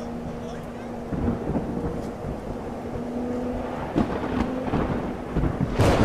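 Thunder, with a loud sudden crack near the end, over a low steady hum.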